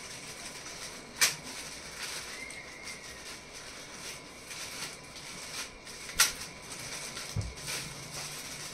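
Small cardboard box and plastic packaging of a GoPro mic adapter being opened and handled: soft rustling and scraping, with two sharp clicks, about a second in and about six seconds in.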